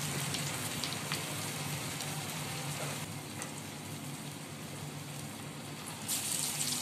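Parippu vada (chana dal fritters) sizzling in hot coconut oil in a frying pan, a steady hiss with scattered small pops. About six seconds in the sizzle grows louder as another raw patty is slipped into the oil.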